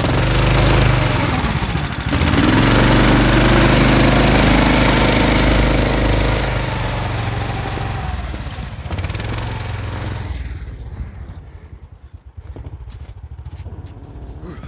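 A vehicle engine revving hard under load, straining to pull the stuck vehicle back out of soft snow; the revs climb about two seconds in, hold, then ease off and die away about ten seconds in, leaving a few faint knocks.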